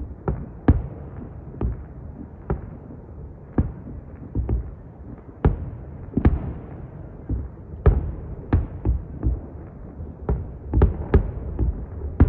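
Fireworks going off: irregular sharp bangs over a steady low rumble, packed closer together near the end.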